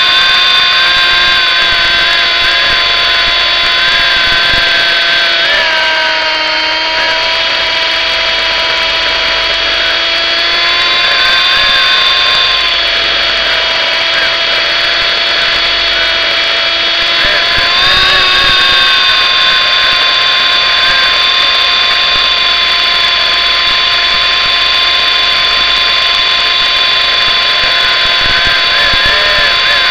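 MJX F45 radio-controlled helicopter's electric motor and gears whining steadily, picked up close by the camera on board. The pitch dips slightly about six seconds in and climbs back around eighteen seconds.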